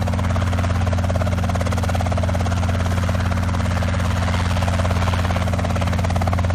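Two-bladed light helicopter hovering a few feet above the ground: a steady, rapid rotor chop over a constant low engine hum.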